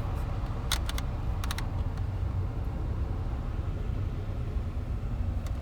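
A few sharp clicks of the Hummer H3's HVAC control buttons and knobs being worked, over a steady low hum of the vehicle running.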